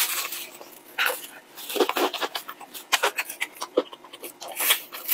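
Close-miked eating of crispy fried chicken: a run of short, irregular crunches and wet chewing sounds as it is bitten into and chewed.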